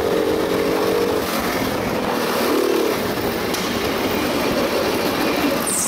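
Go-kart engine heard from on board, running at steady high revs for about a second, then easing off into a rougher, uneven running as the kart slows.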